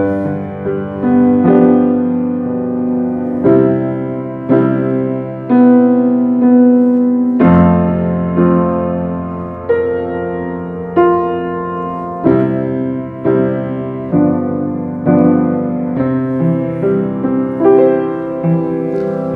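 Piano playing a slow, gentle hymn accompaniment alone: chords and single notes struck about once or twice a second, each fading before the next.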